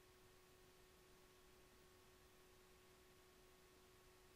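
Near silence: a faint steady hiss with a thin unchanging hum, the recording's own noise floor.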